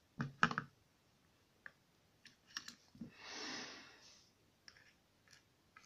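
Light clicks of small brass lock pins and the cylinder's brass plug being tipped out and set down in a pin tray, the loudest near the start and more scattered later. A soft breathy rush about three seconds in.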